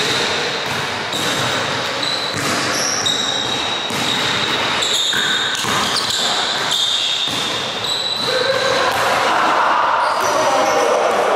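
Basketball dribbled hard on a hardwood gym floor, irregular bounces echoing in a large hall, with short high-pitched sneaker squeaks as the players cut.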